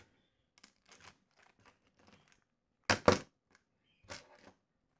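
Small plastic RC car parts and parts bags being handled and rummaged through: scattered light clicks and rustles, with a louder cluster of clicks about three seconds in.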